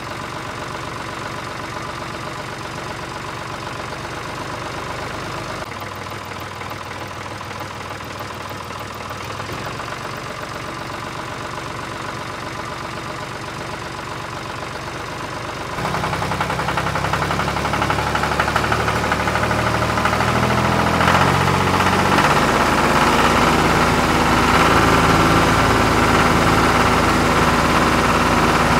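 Tractor engine sound, played for a toy remote-control tractor, idling steadily, then suddenly louder and heavier about halfway through, its pitch stepping up and down as if working under load.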